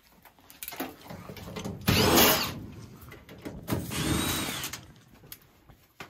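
Cordless drill spinning a sheet-metal screw on a furnace panel in two short bursts, the second with a whine that rises and falls as the motor speeds up and slows.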